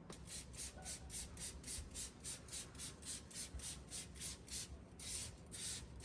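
Hand spray bottle squeezed over and over, spraying bleach in short hissing bursts about four a second, with one longer spray near the end.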